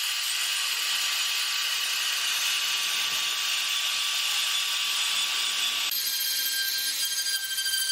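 Handheld rotary tool with a fine bit running at high speed and grinding into wood. Its whine is steady, then shifts to a different pitch about six seconds in.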